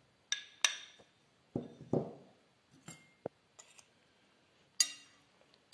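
A metal spoon clinking and knocking against a small ceramic bowl and a glass mixing bowl as cubes of soft cheese are scraped in, about eight irregular clinks, two of them duller knocks near the middle.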